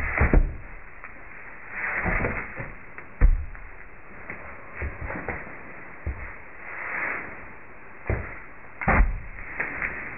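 A horse stepping and shifting its hooves in wood-shaving bedding in a stall, with soft rustling and a few dull knocks, the loudest about three seconds in and near the end.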